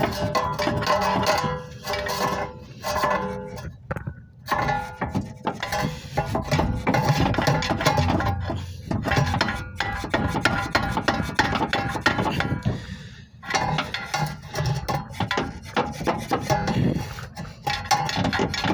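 Irregular metallic clanking and scraping of a large screwdriver levered against the front lower control arm of a 2016 Dodge Journey, prying the worn arm and its rubber bushing out of its mount.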